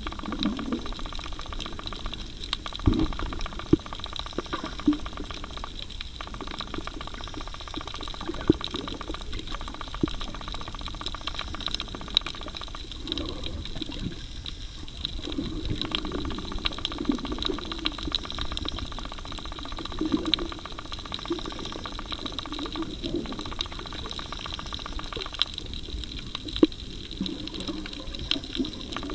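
Muffled underwater sound as heard by a camera in the sea: swirling water surging every few seconds, with scattered sharp clicks and a faint steady high whine.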